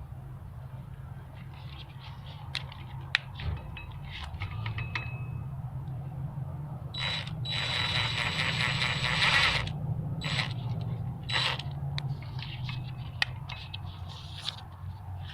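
Power drill tightening a rear wheel hub's retaining bolts through the access hole in the hub, with metallic clicks and scraping. The drill runs loudest for a few seconds starting about seven seconds in.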